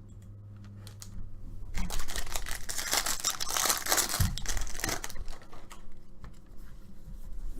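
A trading card pack wrapper being torn open and crinkled for a few seconds, with scattered clicks of the cards being handled afterwards.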